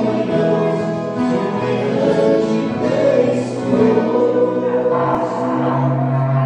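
Music with singing over viola caipira; about five seconds in, a long steady low horn note comes in over it, a berrante blown as accompaniment.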